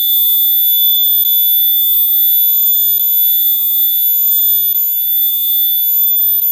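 Cicadas singing: a loud, steady, high-pitched drone that holds without a break.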